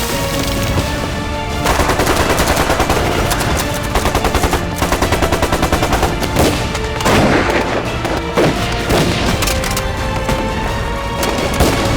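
Machine-gun fire in two long rapid bursts of about eight shots a second, with scattered single shots and heavy blasts, over dramatic background music.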